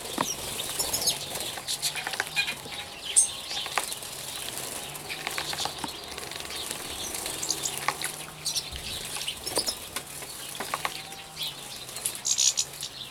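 Small finches, European goldfinches among them, splashing in a shallow water bath and fluttering their wings in many short spurts, with a few brief high chirps.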